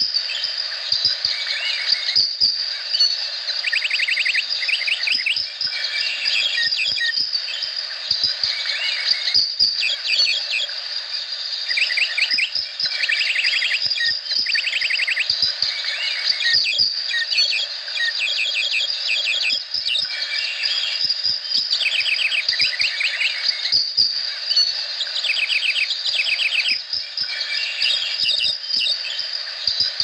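Tropical rainforest chorus: birds calling in quick runs of rapid notes every few seconds over a steady, high insect drone.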